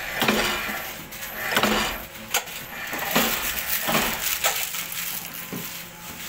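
Soap-stamping press knocking repeatedly as it presses bars, irregular knocks with short ringing tails about once a second, amid workshop clatter.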